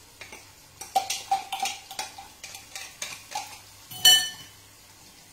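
Utensil scraping and knocking in a white bowl, in irregular strokes that each ring briefly. About four seconds in comes one sharp, bright clink, the loudest sound.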